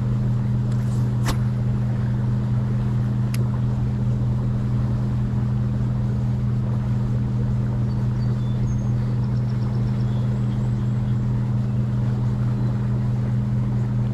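A steady low mechanical hum that holds one unchanging pitch, with two short clicks in the first few seconds.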